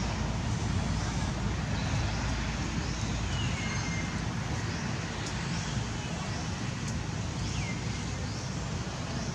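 Steady outdoor background rumble and hiss, with a few faint short chirps now and then.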